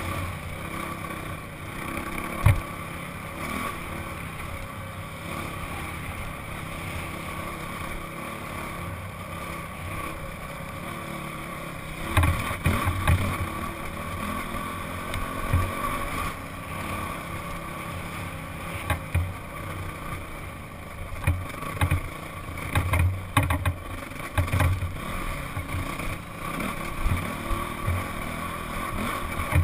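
Honda CRF four-stroke single-cylinder dirt bike engine running steadily under way, heard from a camera mounted on the bike, with a constant drone. Short low thumps come now and then, most of them past the middle, as the bike rides over rough ground.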